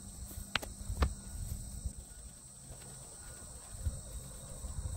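Crickets trilling steadily in a high-pitched chorus, with two sharp clicks about half a second and a second in over a faint low rumble.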